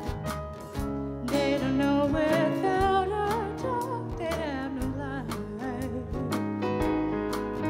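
Live song: a singer enters about a second and a half in, holding long notes with vibrato over a strummed guitar accompaniment.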